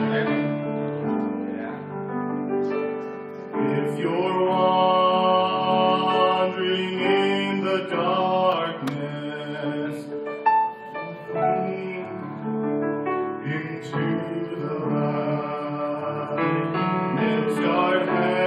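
Gospel song performed by a vocal trio, voices in harmony over piano accompaniment, with long held notes.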